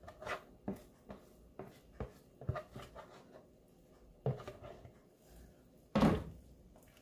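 A utensil stirring and scraping thick, sticky halaya (mashed purple yam jam) around a cooking pot, in irregular knocks and scrapes, with a louder knock about six seconds in. The mixture is still thickening and has become heavy to stir.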